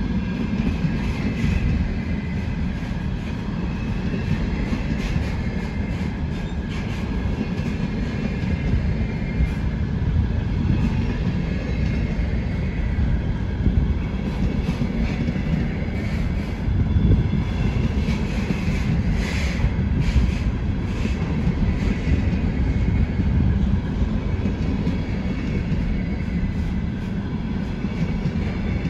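A freight train of loaded container flatcars rolling past: a steady rumble of steel wheels on rail, with irregular clacks as the wheelsets cross rail joints and a faint high wheel whine at times.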